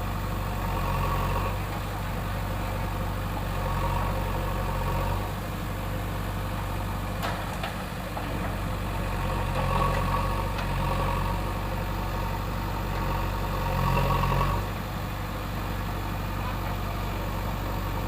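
A heavy machine's diesel engine running steadily, swelling in level several times as it takes load.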